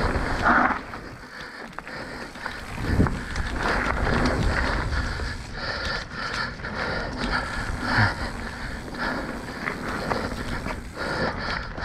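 Mountain bike riding fast down a dirt flow trail: tyres rolling over packed dirt and leaves, the bike rattling and wind on the microphone, with a few thumps from bumps and landings, the loudest about three seconds in and another about eight seconds in.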